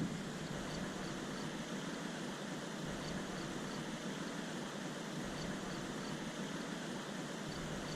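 Steady rush of a river waterfall, with faint high chirps in small groups every couple of seconds.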